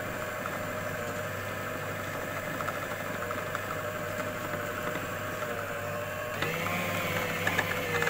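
An Anex food processor's motor runs steadily, its blade grinding minced mutton into a smooth kofta paste. About six seconds in, its sound grows louder and shifts in pitch.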